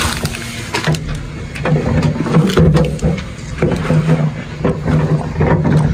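Loose soil sliding and pouring out of a tipped metal wheelbarrow, with scraping and knocks against the tray, over a steady low engine hum.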